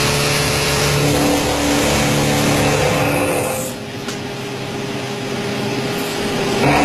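LMW CNC machining centre face milling metal: the cutter's steady cutting noise over the spindle's hum. A little past halfway the cutting noise falls away to a lighter steady tone, then returns loudly near the end.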